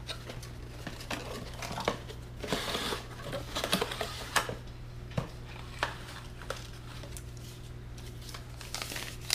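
Cardboard bulb box being handled and opened by hand: scattered clicks and taps, with a denser rustling, sliding stretch about two and a half seconds in.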